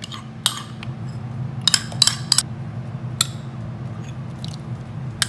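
Metal spoon clinking against a glass mixing bowl as thick sauces are spooned in: about eight sharp clinks, most of them bunched around two seconds in, over a steady low hum.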